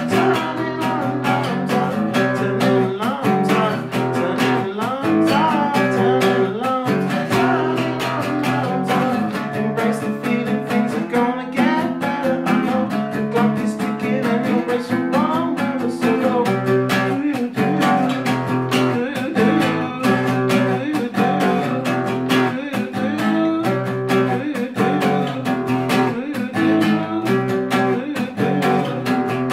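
Acoustic guitar strummed in a steady rhythm, with chord changes.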